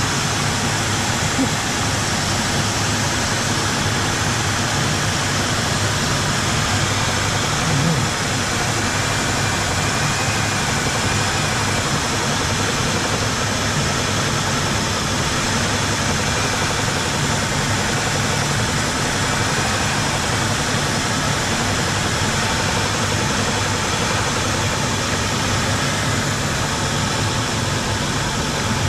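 2001 Ford Windstar's V6 engine idling steadily.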